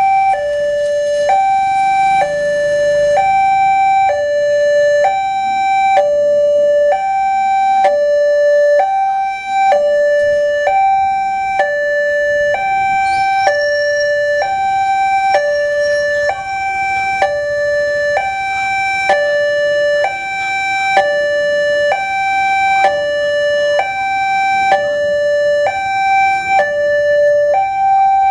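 Electronic warning alarm of a railway level crossing sounding from the loudspeaker on the signal post, two tones alternating high-low about once a second. It means a train is approaching and the barriers are down.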